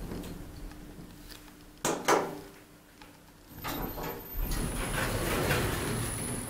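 Schindler hydraulic elevator arriving at a floor: a low hum, then two sharp clunks about two seconds in. From the middle on, the car's automatic doors slide open with the door motor running and a thin high whine.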